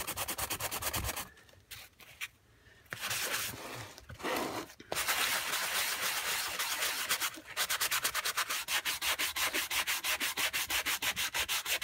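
Hand-held sanding block scrubbed quickly back and forth over a painted, fabric-covered book page, about five strokes a second. The strokes break off for a few seconds after about a second and then run steadily again from about halfway. The block is barely lifting the dried paint, which she puts down to the sanding block being no good.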